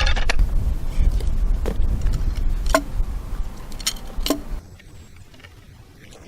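A log being levered and rolled into position by hand: a handful of sharp, short knocks and clinks over a low rumble, which drops away about four and a half seconds in.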